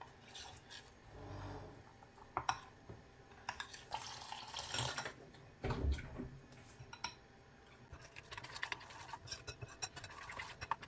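Metal spoon scraping and clinking against a glass bowl as cornmeal and a little water are stirred into a paste, with a dull thump about six seconds in.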